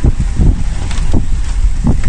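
Wind buffeting the microphone in gusts, a loud, uneven low rumble.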